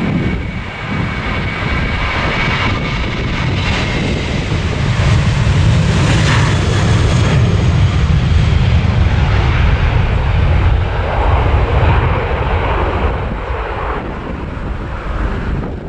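Boeing 737-800's CFM56-7B jet engines at takeoff thrust during the takeoff roll and lift-off, heard close. A high fan whine comes first, then a heavy low rumble that is loudest as the aircraft passes and rotates, easing off near the end as it climbs away.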